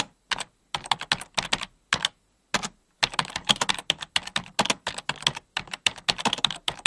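Fast typing on a computer keyboard: rapid key clicks in short bursts with brief pauses, settling into a continuous run of keystrokes from about three seconds in.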